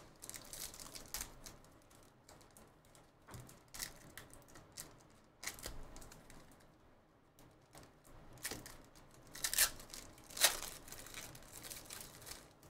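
Foil trading-card pack wrapper being torn open and crinkled by hand, a run of irregular sharp crackles, the loudest about ten seconds in.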